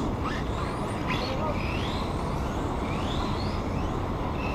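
Radio-controlled drift cars' motors whining in short rising glides, several times, as the cars accelerate around the course, over a steady background hiss.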